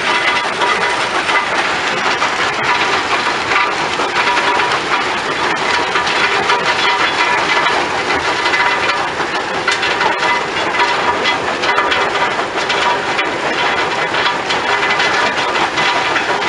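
Rock crushing plant running: a cone crusher and belt conveyors make a steady machinery din with a dense crackle of crushed stone.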